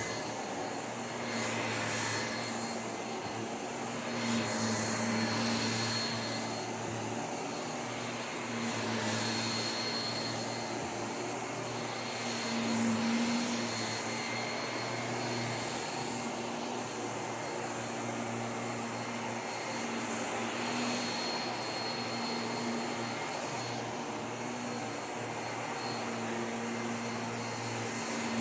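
Vacuum cleaner running steadily, a low motor hum with a thin high whine over it, its loudness rising and falling gently every few seconds.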